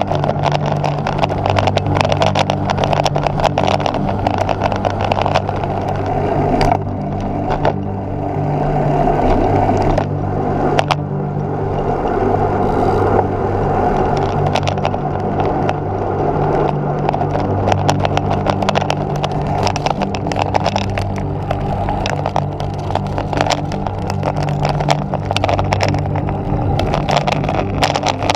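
Wind and road noise on a bicycle-mounted camera on the move: a steady rush with frequent small knocks and rattles from the road surface, over a low steady hum.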